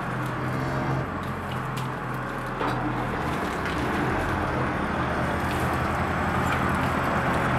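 Steady low machine hum with a noisy hiss over it, and a few faint clicks.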